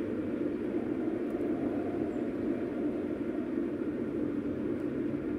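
Steady road and engine noise heard inside a moving car's cabin, a low even rumble while cruising.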